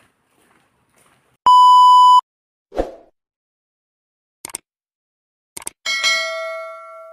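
Subscribe-button outro sound effects: a loud steady electronic beep lasting under a second, a short thump, two mouse clicks, then a bell chime ringing out.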